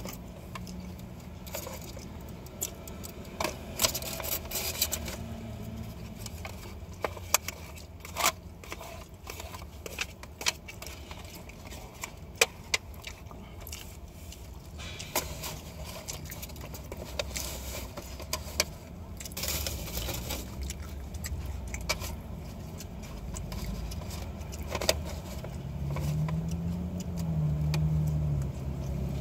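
Scattered clicks and rustles from a small plastic food cup being handled, and eating, over a steady low hum of the car's idling engine. Near the end a person hums one note that rises then falls.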